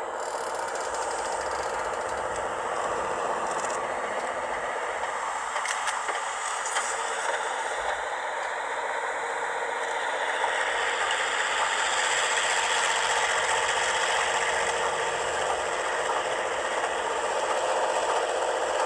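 Recording of a working railway rotary snowplow, played back through a small Bluetooth speaker inside a model snowplow: a steady mechanical rattle and clatter, thin with almost no bass, growing slightly louder about halfway through.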